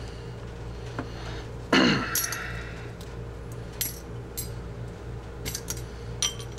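Small metal hand tools picked up and set down on carpet, giving a scatter of light clinks and clicks over a steady low hum. About two seconds in there is one louder, short sound that falls in pitch.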